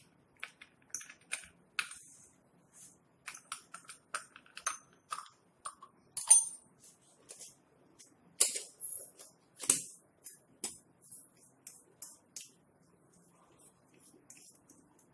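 Brass sev press being put together by hand: its metal parts clink and click irregularly against each other and the steel plate, with a few sharper knocks, the loudest about six and ten seconds in.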